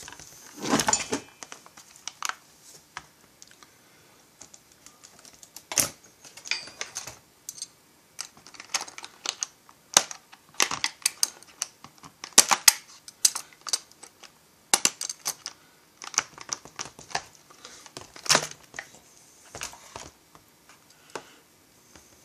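Irregular clicks, taps and knocks of a plastic chainsaw handle and small parts being handled and set down on a workbench.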